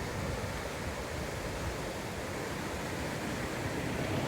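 Steady rushing of a monsoon-swollen stream, the Mungabahar nala in full current.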